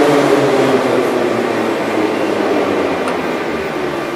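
Moscow Metro 81-775 'Moscow-2024' train heard from inside the car as it brakes into a station: the traction drive's whine falls in pitch and the running noise fades as the train slows.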